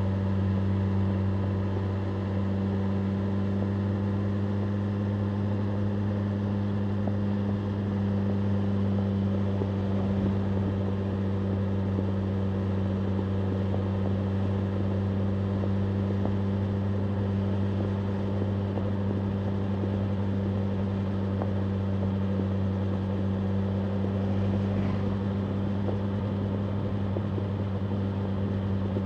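BMW M1000R Competition's inline-four engine running steadily, holding one even pitch with no revving or gear changes.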